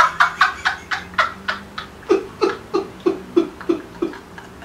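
People laughing: a long run of ha-ha pulses, nearly four a second, that stops about four seconds in.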